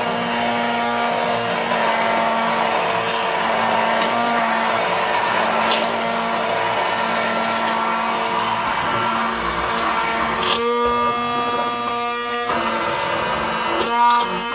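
Immersion blender running steadily in a bowl of egg and oil, whipping it into mayonnaise: a steady motor hum. Its tone changes for a couple of seconds about ten seconds in.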